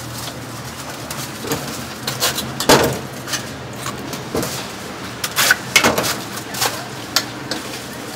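Food-stall clatter: scattered short knocks and clicks from bread, bowls and utensils being handled, over steady background street noise. The sharpest knocks come a little under three seconds in and again around five to six seconds in.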